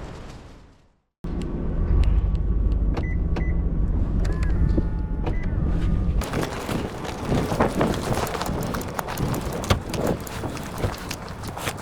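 Wind on the microphone dies away and cuts off. Then comes a car's steady low engine rumble with a few short beeps and small clicks. About six seconds in it gives way to a rough, noisy stretch of many small crunches and knocks.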